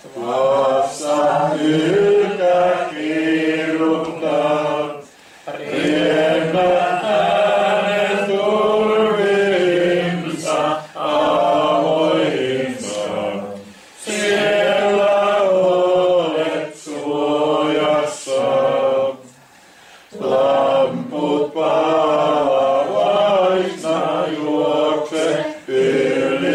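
A small group of men and women singing a Finnish hymn without accompaniment, in long held phrases with short pauses between the lines.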